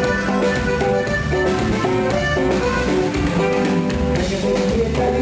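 Live band playing an instrumental passage, with guitar and drum kit prominent.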